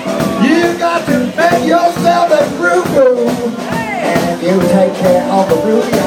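Live Chicago-style blues from a band, with a harmonica lead bending notes up and down in pitch.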